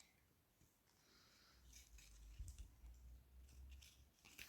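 Near silence with a few faint clicks and light handling noise from a small plastic toy piece being turned over in the hands.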